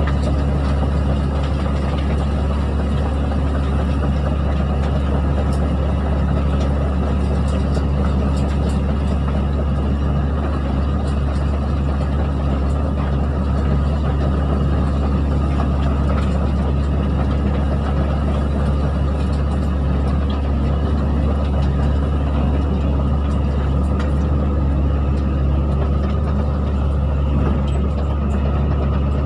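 Excavator's diesel engine running steadily with a deep, even drone.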